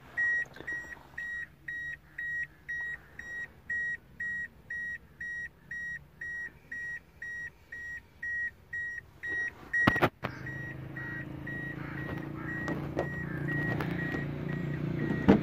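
A car's warning chime beeping steadily, a single high beep about twice a second, typical of the key being left in the ignition with a door open. About ten seconds in there is a sharp knock, after which the beeping goes faint under a steady low machine hum.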